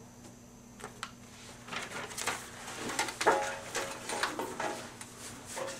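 Paper slips rustling and clicking against a metal tin as a hand stirs through them, with a few short, soft vocal sounds.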